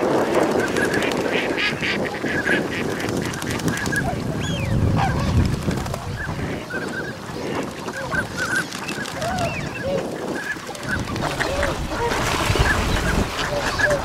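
A flock of tundra swans (Bewick's swans) giving many short honking calls, with ducks calling among them. A low rumble comes near the start and again near the end.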